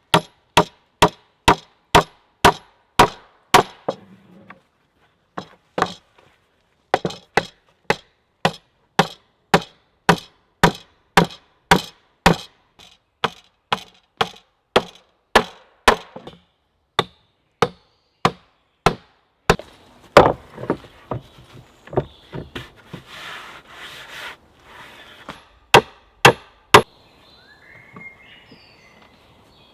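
A steady series of sharp blows from a hand tool on wood, about two a second, as the edge of a timber board is trimmed straight. The blows pause a few seconds in, give way to some rasping of tool on wood around two-thirds of the way through, and stop near the end.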